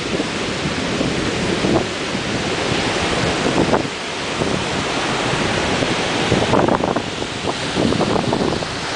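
Ocean surf breaking and washing on the shore, a continuous rushing with surges every second or two, mixed with wind buffeting the camera's microphone.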